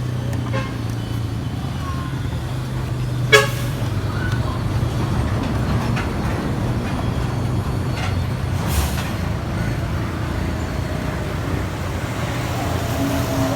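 A motor vehicle engine running steadily, with a sharp click about three seconds in and a fainter one later.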